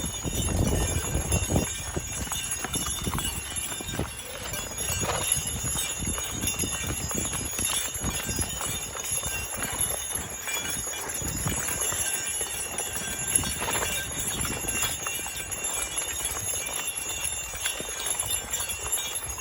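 A team of Belgian draft horses walking in harness as they pull a plough: irregular thuds and knocks of heavy hooves on the field.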